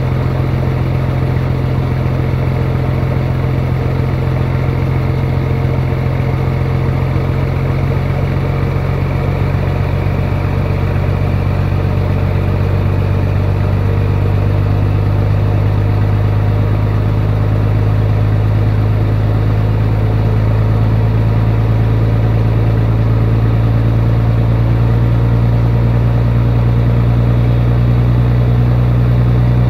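Scania 111S truck's inline six-cylinder diesel engine idling steadily, warming up on its first run of the day. Its note shifts slightly and grows a little louder about halfway through.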